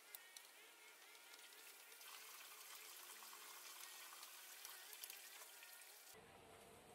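Near silence: faint outdoor background hiss with a few soft clicks.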